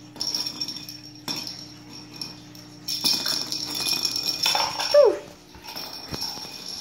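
A Ragamuffin kitten gives one short meow, falling in pitch, about five seconds in. Around it there is light jingling and rattling as the kittens bat a bell toy ball across the tile floor.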